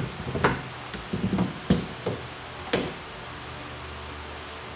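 J-roller rolled and pressed over a freshly laid foam boat-deck pad, giving a few sharp knocks and taps in the first three seconds. After that only a faint steady hum remains.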